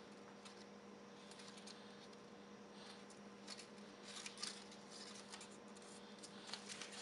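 Faint papery crackling and rustling of Post-it notes being pulled apart and handled by a toddler's hands, in short scattered crackles that are busiest about four seconds in.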